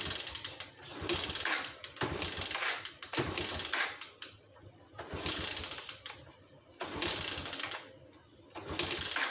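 Suzuki Raider J 110 motorcycle engine being cranked over in repeated short bursts, about one attempt every second and a half to two seconds, each a rapid mechanical clatter that stops without the engine catching. It is being started for the first time with a freshly fitted original Mikuni carburetor.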